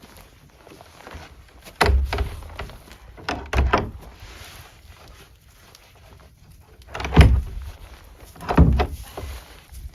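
A shelter door being shut and secured: a series of separate knocks and thuds, the loudest two near the end.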